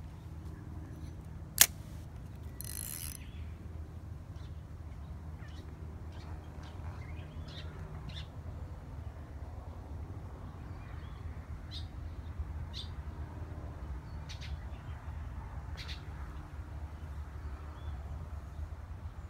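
Birds chirping now and then, short high calls scattered through, over a steady low rumble. A single sharp click about a second and a half in, the loudest moment, is followed by a brief hiss.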